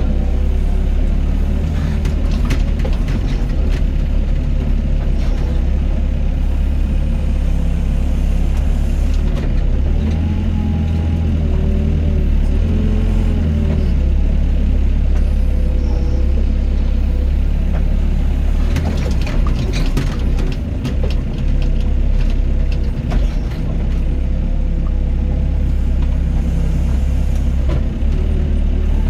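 Doosan DX55 mini excavator's diesel engine running steadily under load, with a whining tone that shifts in pitch as the machine works. Bursts of rattling clatter come a few seconds in and again about twenty seconds in.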